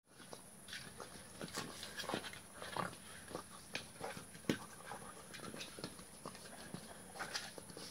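Labrador retriever puppy mouthing and nudging a rubber toy on grass and dirt: irregular soft clicks, scuffs and rustles.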